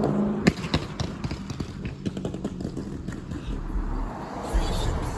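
Footsteps on pavement: a run of irregular knocks and taps, thickest in the first three seconds, over steady road-traffic noise.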